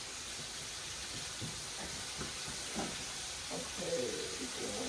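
Chicken frying in hot oil in a pan: a steady sizzle.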